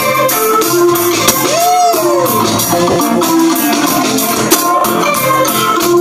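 Live band playing loud through a PA: a drum kit keeping a steady beat under electric guitar, bass guitar and a keyboard with an organ sound.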